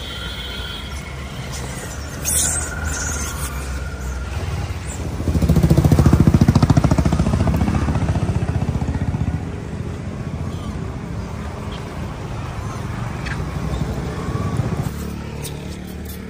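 Motor traffic: a steady engine rumble, with one vehicle passing close and louder for about four seconds in the middle.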